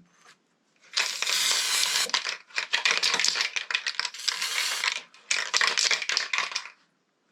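Rustling, scraping handling noise with small clicks as cleaned motorcycle head bolts are worked over by hand, in three stretches of a second or more each.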